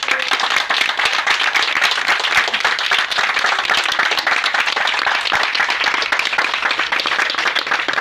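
A group of people applauding, many hands clapping steadily together, with one pair of hands clapping close by.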